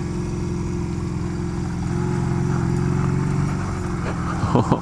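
Honda Rebel motorcycle engine running steadily, heard from a helmet-mounted camera, getting a little louder about halfway through and then easing back.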